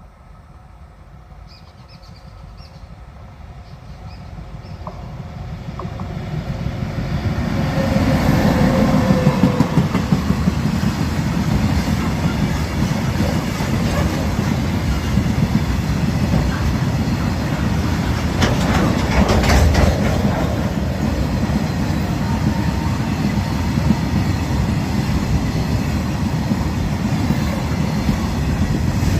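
A train approaching, growing steadily louder over the first eight seconds or so, then running close by with a steady loud rumble and fast clatter of its wheels on the rails, with a brief louder burst a little past halfway.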